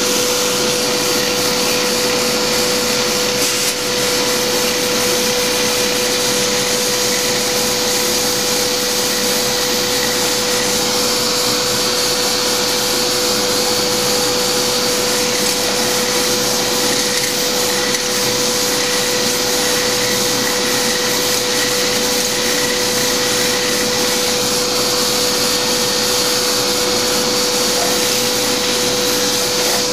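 A hand-held power tool runs steadily at high speed, driving a small dry diamond core bit that grinds into thin 3.5 mm Kerlite porcelain tile. A steady whine sits over an even grinding hiss, without a break.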